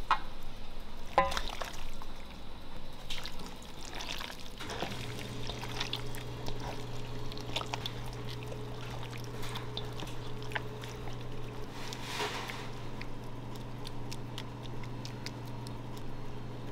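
Raw chicken pieces going into a stainless steel bowl of thick liquid batter and being squished through it by a gloved hand: wet sloshing and squelching, with two sharp metallic clinks near the start. A steady low hum comes in about five seconds in.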